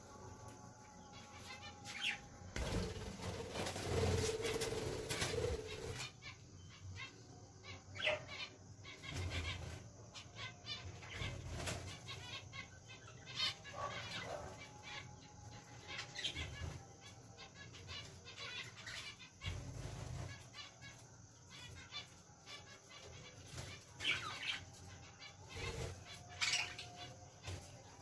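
Budgerigars fluttering their wings among the perches, with short chirps scattered throughout. There is a louder stretch of rustling and flapping about three to six seconds in.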